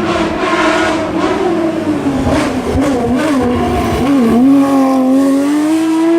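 Porsche 911 (997) rally car's flat-six engine running hard on a stage: its pitch sinks and wavers in the middle as the driver lifts and works the throttle, then climbs steadily as it accelerates.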